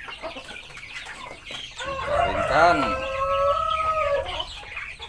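A rooster crows once, starting about two seconds in: a long drawn-out call lasting about two seconds, over the steady clucking of hens.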